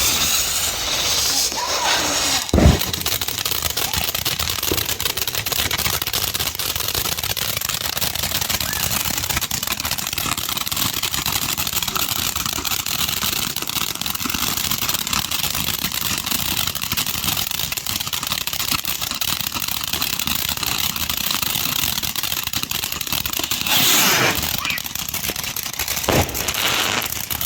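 Fireworks going off: a steady dense crackle, with a sharp bang about two and a half seconds in and a hissing rush followed by another bang near the end.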